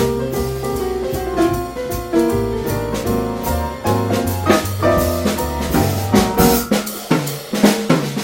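Jazz trio playing: piano over bass and drums. About seven seconds in the bass drops out and the drums come to the front.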